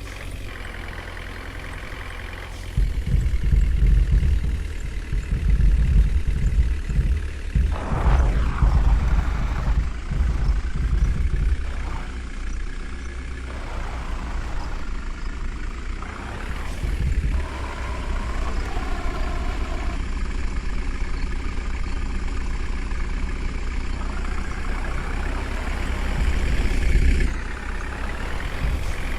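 JCB 3DX backhoe loader's diesel engine working under load. It revs up about three seconds in and rises and falls in pitch as the hydraulics dig and lift, then settles to a steadier run near the end.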